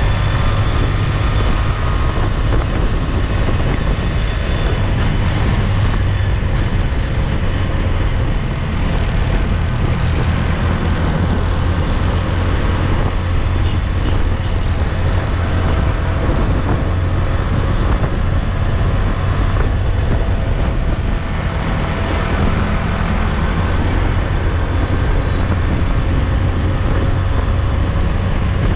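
Busy road traffic heard from a moving bike: a loud, steady rumble and rush of vehicles, heaviest in the low end, without a break.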